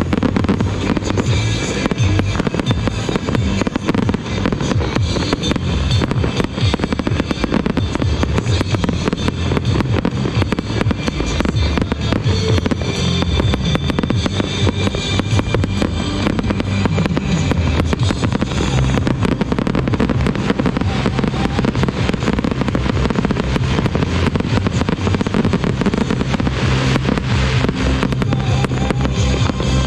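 Aerial fireworks shells bursting one after another in a continuous barrage of overlapping bangs and crackles, with music playing alongside.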